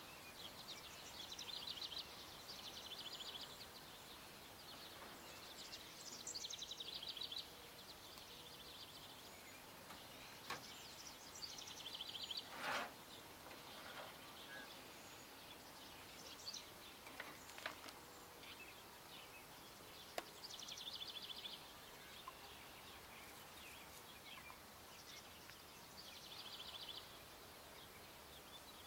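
Faint ambience with a bird repeating a short, rapid, high trill about every five or six seconds, and one sharp knock a little before the middle.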